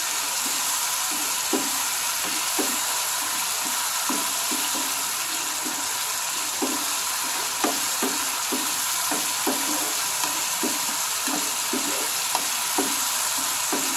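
Green chillies frying in thick masala in a non-stick pan, a steady sizzle, while a plastic spatula stirs and scrapes the pan with short irregular knocks, about one or two a second.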